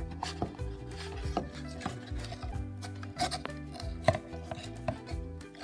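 Irregular clicks and taps of a plastic model horse and its cardboard box being handled as the horse is worked free of its tie, over background music with held notes.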